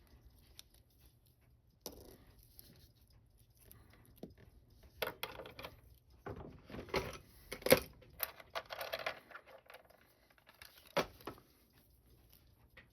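Small metallic clicks, clinks and taps of watchmaker's tools and watch parts being handled, with a short scraping stretch about nine seconds in.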